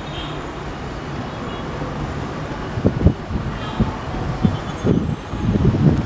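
WDM3A diesel-electric locomotives (ALCO-design engines) running light with a steady engine rumble. Irregular low thumps come more often in the second half.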